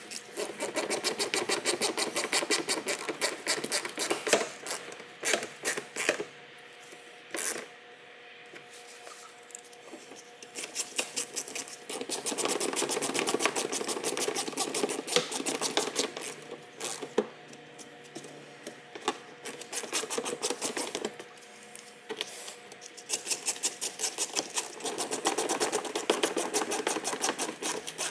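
Socket ratchet clicking in long runs of rapid clicks, with quieter pauses between them, as bumper bolts are driven in.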